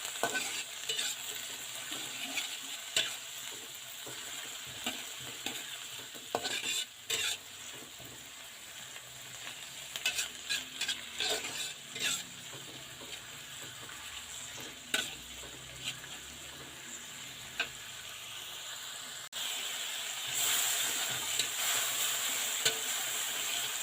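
Food sizzling as it fries in hot oil in a pan, with irregular clicks and scrapes of a utensil stirring against the pan. The sizzle grows louder near the end.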